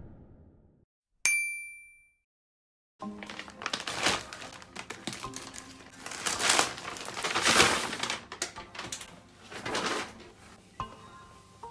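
A single bright chime rings and fades about a second in. From about three seconds in comes the crinkling rustle of a plastic courier mailer bag being torn open and unwrapped by hand, and near the end a cotton dust bag is handled.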